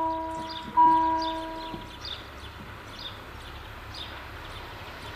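Level-crossing warning bell striking, each ding ringing out and fading; the last strike comes about a second in. Birds chirp over a faint low rumble after it.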